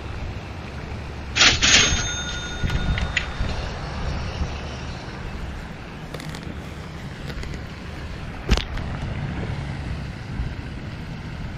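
Baitcasting rod and reel being cast and reeled in: a loud sudden burst with a ringing high tone about a second and a half in, then a sharp click about eight and a half seconds in, over a steady low rumble.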